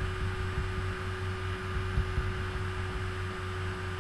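Steady electrical hum and hiss of the recording's background, with a few faint low thumps about halfway through.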